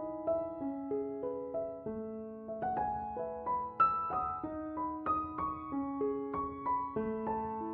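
Background music: a slow, gentle piano melody of single notes over held lower notes.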